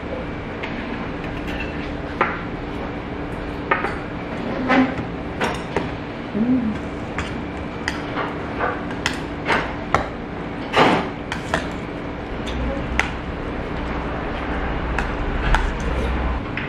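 A metal spoon and metal chopsticks clinking and scraping against a stainless steel bowl while bibimbap is mixed: irregular clinks over a low steady hum.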